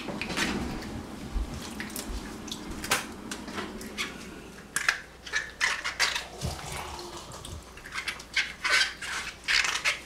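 Hands washing small unripe quinces in a metal bowl of water: irregular splashes and drips, with the hard fruit clattering against the bowl, busier in the second half.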